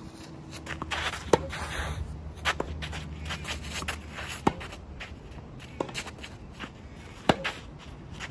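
Tennis rally on a clay court: sharp racket-on-ball hits every couple of seconds, some louder and some softer, with shoes shuffling and scuffing on the clay between shots.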